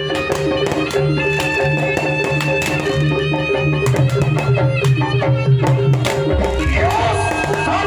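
Music: drums tapping a rhythm under held instrumental notes, with a sliding melody line coming in near the end.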